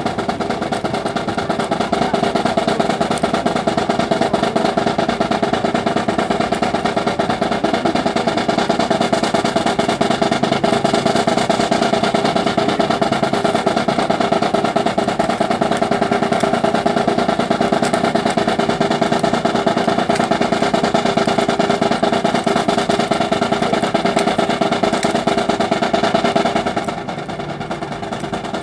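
Marching snare drums of a drill team's drum corps playing a sustained fast roll, with the level dropping slightly near the end.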